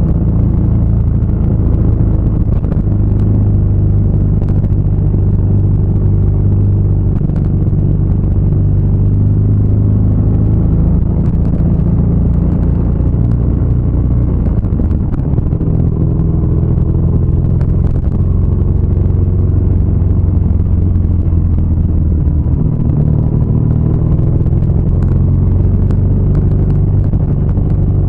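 BMW R nineT's boxer twin engine running steadily while riding at an even pace, its low drone changing little in pitch.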